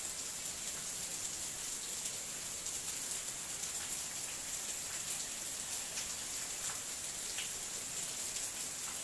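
Steady, even hiss like rain, with a few faint ticks; no tool or engine sound stands out.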